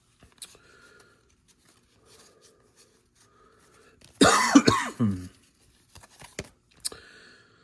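A man with a cold coughing: one loud, harsh fit of coughs about four seconds in, lasting about a second, to clear a tickle in his throat. Faint rustles and clicks around it.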